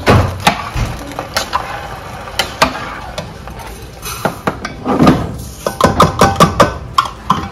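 Sharp knocks and clatter of a cooking utensil against a cooking pot, with a quick run of taps a little after halfway.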